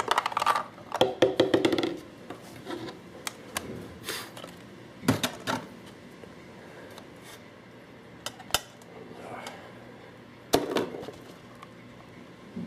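Handling noise from a GI Pulse RDR plastic paintball hopper: a quick run of clicks and rattles in the first two seconds, then single sharp taps and knocks every second or two.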